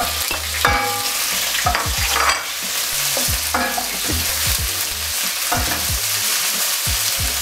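Chicken pieces and freshly added sliced red onions sizzling in hot oil in a pan, stirred with a wooden spatula that knocks and scrapes against the pan over and over.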